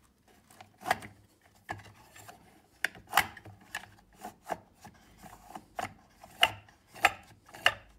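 A Polaris XCR snowmobile recoil starter being handled by hand: irregular clicks and short scraping rubs as the recoil pulley is worked in its aluminium housing on a wooden workbench, the sharpest clicks about three seconds in and again near the end.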